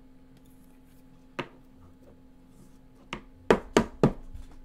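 A few sharp taps and knocks of a rigid plastic card holder (top-loader) being handled against the desk: one about a second and a half in, then four quick ones close together near the end.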